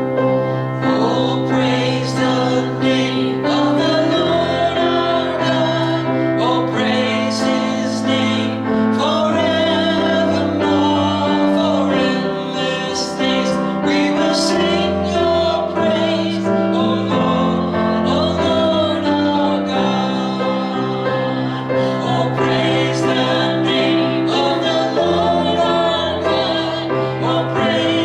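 Worship song: voices singing over piano accompaniment.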